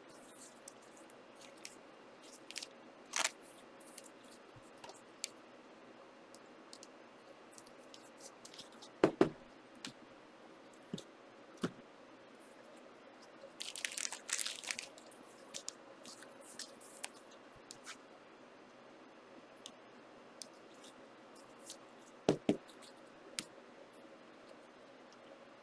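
Football trading-card packs being opened and handled: wrappers crinkling and tearing in a crackly cluster about halfway through, with scattered light clicks of cards and two dull thumps on the table, the loudest sounds, about a third of the way in and near the end, over a faint steady hum.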